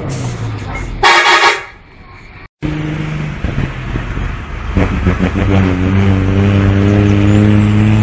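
Bus diesel engine running, cut through about a second in by a short, loud horn blast that fades away. After a brief dropout, a bus engine pulls on the road, its pitch rising from about five seconds in and then holding steady.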